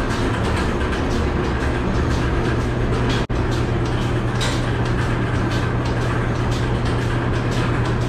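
Goat milking machine running: the vacuum system gives a steady low hum under a constant hiss, with the pulsators clicking and hissing in a regular rhythm.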